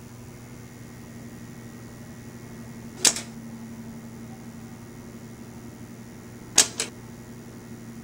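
Office punch time clock stamping time cards: a sharp mechanical clack about three seconds in, then a double clack about six and a half seconds in, over a steady low electrical hum.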